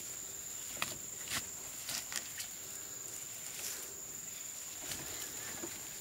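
Steady high-pitched insect drone, with scattered rustles and soft footfalls in leaves and undergrowth.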